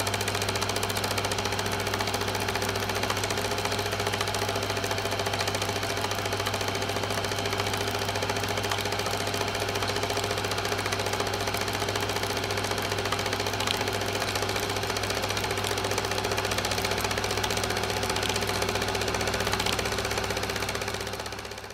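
Film projector running: a steady, rapid mechanical rattle over a constant hum, fading out at the very end.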